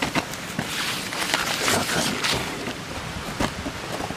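Rustling and crunching from someone moving about on gravelly ground, with a scatter of short clicks and knocks that are busiest in the middle.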